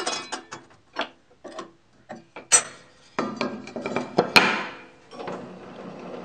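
Hand-spun table saw blade ticking as it slows, then knocks and clatter of a wooden throat insert being set into the cast iron table top around the blade. There is a sharp clack about two and a half seconds in and another near four and a half.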